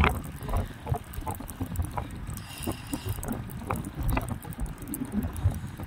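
Wind buffeting the microphone in uneven low rumbles. Scattered light knocks and clicks come from handling the spinning rod and reel.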